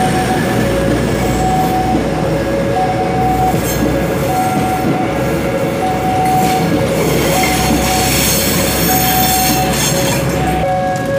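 Railink airport train cars rolling past at a level crossing, with wheel rumble and a high wheel squeal in the second half; the train noise drops away sharply near the end. Throughout, the crossing's warning alarm sounds a steady two-tone signal, the two notes taking turns about every 0.7 s.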